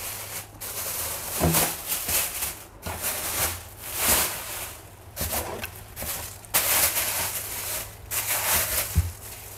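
Thin plastic shopping bags rustling and crinkling in irregular bursts as they are pulled open and handled, with a couple of dull knocks, one about a second and a half in and one near the end.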